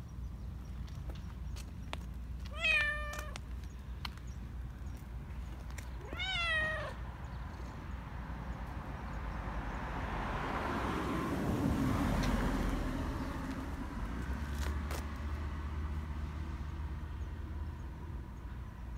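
Black Persian cat giving two short meows, about three and a half seconds apart. Later, a few seconds of rustling as its fur brushes close to the microphone while it is petted.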